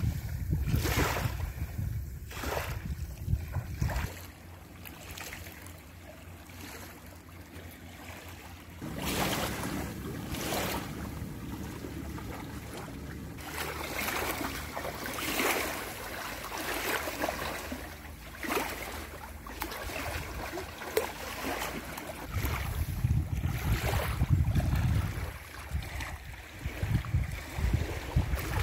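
Wind buffeting the microphone over small waves lapping at the shore, with repeated splashing steps of feet wading through shallow water. The wind rumble is strongest at the start and again near the end.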